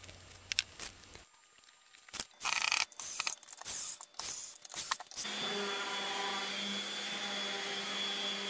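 Wood being handled and knocked, with a few short bursts of a drill driving pocket-hole screws. From about five seconds in, a random orbital sander runs steadily on the pine.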